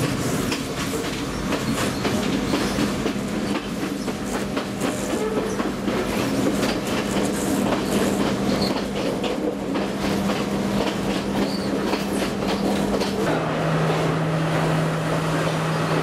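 Passenger train running, heard from inside a carriage by an open door: steady rumble and clatter of wheels on the track. Under it is a steady low hum that drops to a lower pitch about 13 seconds in.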